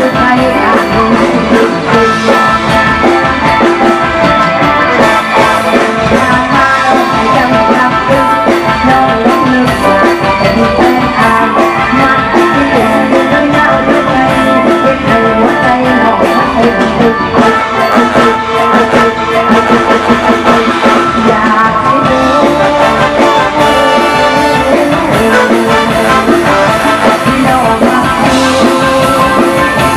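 Loud band music with a steady beat: an Isan song's band part, with little or no singing.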